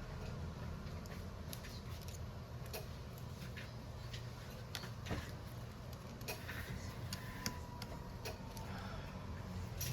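Sparse small clicks and ticks from tools and parts being handled while an OPPO Reno8 5G phone is taken apart for a screen replacement, over a low steady hum.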